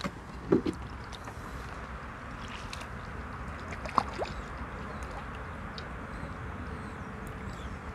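A hooked crucian carp splashing and thrashing at the water's surface against a steady outdoor hiss, with a brief squeak about four seconds in.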